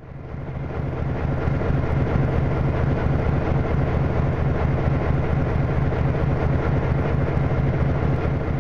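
Diesel engine of an ALCO RS-3m locomotive idling steadily, heard close beside the hood as an even, low rumble that fades in over the first second.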